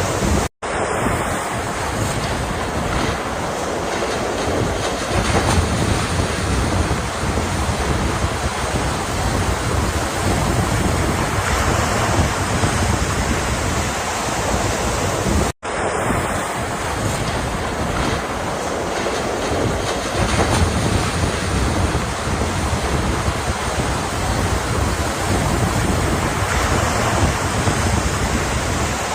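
Ocean waves and surf: a continuous, dense wash of breaking water with no distinct single crashes. The sound cuts out for a split second twice, about half a second in and again about fifteen seconds later, where the recording loops back on itself.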